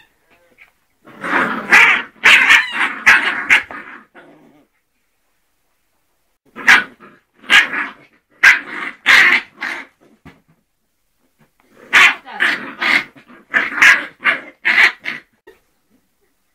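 Two-month-old Scottish terrier puppies barking, in three runs of quick, short, high yaps.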